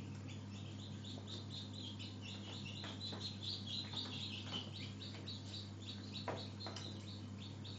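Newly hatched chicken chicks peeping constantly in quick, high chirps over a steady low hum, with a few light clicks from a teaspoon stirring in a small container.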